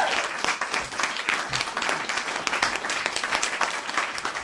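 Applause: many hands clapping in a dense patter, tapering off near the end.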